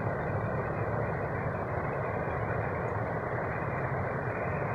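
Water pouring over a small weir into a stream pool: a steady rush with a low rumble underneath.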